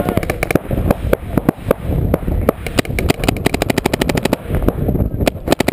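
Paintball markers firing fast strings of sharp shots, densest in the middle.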